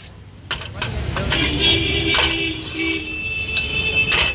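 A few sharp metal clanks of a spatula on a large iron wok of noodles, over low street rumble. A pitched tone is held for about two seconds in the middle and is the loudest sound.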